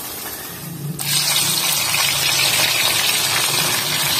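A loud, steady rushing noise like gushing water cuts in suddenly about a second in, over a low hum.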